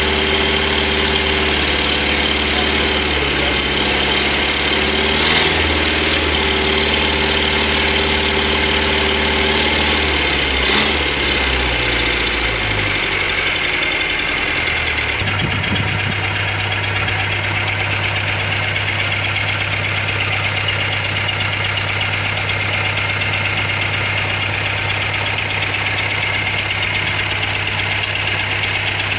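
A borehole drilling rig's engine running steadily. About thirteen to fifteen seconds in, its note drops and it settles into a steady lower hum.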